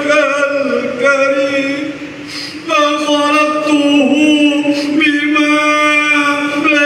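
A man chanting an Arabic istighfar prayer through a microphone and loudspeaker, drawing each syllable out on long, steady notes. He pauses briefly for breath about two seconds in.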